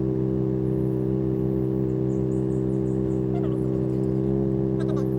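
Engine running at a steady idle, an even low hum that does not change in pitch.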